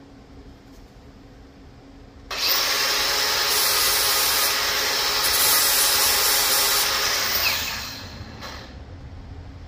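Angle grinder with a 120-grit flap disc grinding the worn edge of a forestry mulcher tooth flat to sharpen it. It starts suddenly about two seconds in, grinds steadily for about five seconds, then trails off as it is lifted away.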